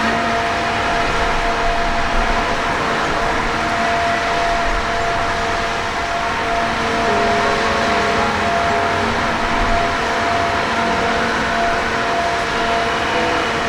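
Misting fan running steadily: an even whir with a constant hum.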